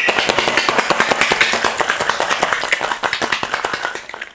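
Large ice cubes rattling inside a stainless steel cobbler cocktail shaker that is shaken vigorously: a loud, rapid, steady clatter of ice striking metal that stops about four seconds in.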